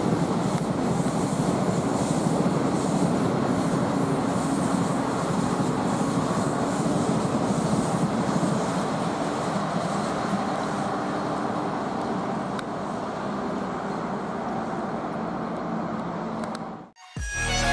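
A train running along the track: a steady rumble and rush of wheels on rails with a low hum, easing slightly in the second half. It cuts off suddenly near the end, just before music starts.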